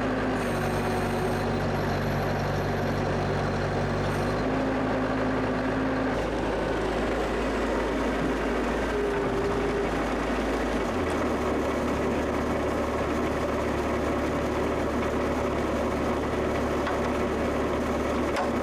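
Bobcat 763 skid steer's diesel engine running steadily with its muffler and exhaust pipe refitted; its low hum shifts in pitch a few times as the engine speed changes.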